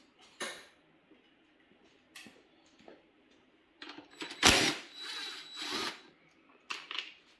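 Mechanical handling noises from taking off a motorcycle seat: short scrapes and clicks, a loud knock about four and a half seconds in, then rough scraping.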